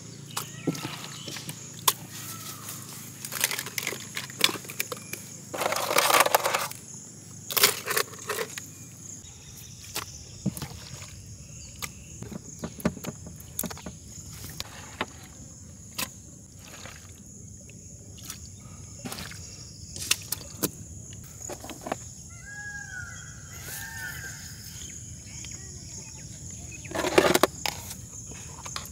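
Hands packing masala-coated seafood into a whole marinated lamb carcass: wet squelching of the paste-covered meat with scattered clicks, louder squelches about six and seven and a half seconds in and again near the end. A steady faint high hiss runs underneath.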